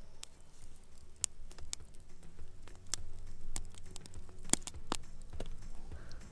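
Wood campfire crackling, with irregular sharp pops and snaps from the burning wood; the loudest pops come about four and a half seconds in.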